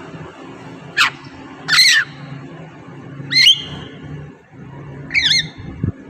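Javan myna (jalak kebo) giving four harsh, squawky calls a second or two apart, each a quick gliding whistle, over a faint steady low hum.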